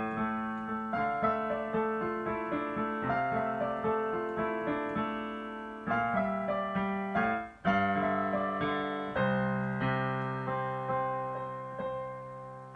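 Digital piano played solo: a steady run of notes, with a short break a little past halfway, then slower notes left to ring toward the end.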